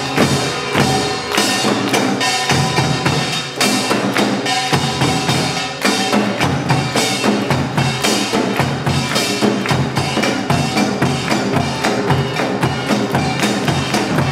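Samulnori percussion ensemble playing: buk barrel drums and janggu hourglass drums beating a dense, steady rhythm of fast strokes, with the metal gongs ringing over them.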